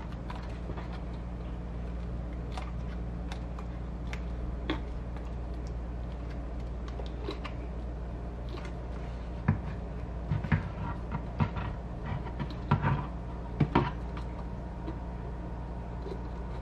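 Light clicks, creaks and rubbing as a rubber wiring grommet is squeezed, twisted and worked out of a plastic gauge housing by hand, over a steady low hum. The clicks come closer together in the second half.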